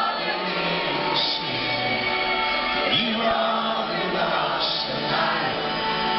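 Live rock band playing, heard from among the audience: sustained chords with voices singing over them.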